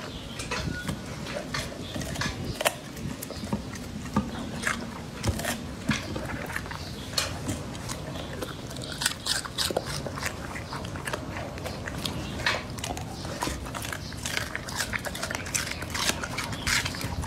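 Labrador chewing and crunching yellow bell pepper, with irregular crisp crunches and wet mouth and lip sounds against the plastic plate.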